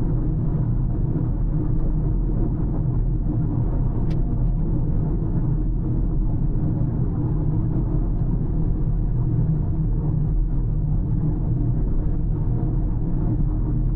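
A car driving along at a steady pace, with a constant low rumble of tyres on the road and the engine. There is a single brief tick about four seconds in.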